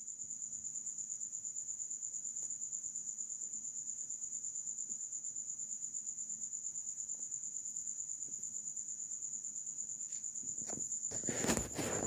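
A steady, high-pitched insect trill, cricket-like, pulsing rapidly and evenly. A few knocks or taps come near the end.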